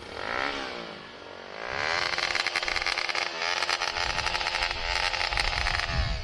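Bajaj Pulsar NS200 single-cylinder motorcycle engine being revved: a short throttle blip near the start, then from about two seconds in repeated loud revving, the pitch sweeping up and down.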